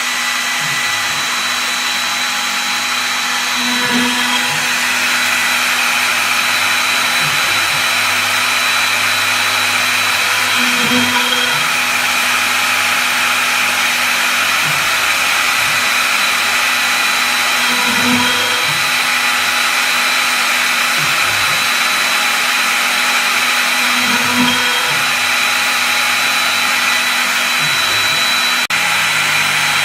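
CNC router running, its spindle motor giving a steady high whine over a loud hiss, with a slight swell about every seven seconds.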